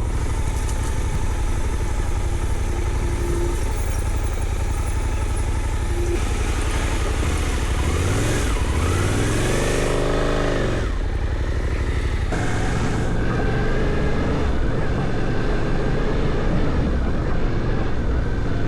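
Suzuki V-Strom 800DE parallel-twin motorcycle engine running while riding, with wind and road noise. About halfway through, the revs rise and then fall back.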